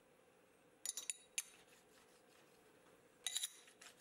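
Faint, light metal-on-metal clinks at the mill vise: a few quick ones about a second in and a short cluster near the end, as a hand handles the machined aluminium part.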